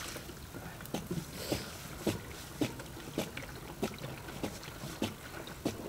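Pond water glugging out of a plastic canister lying on its side, in regular gulps a little under two a second.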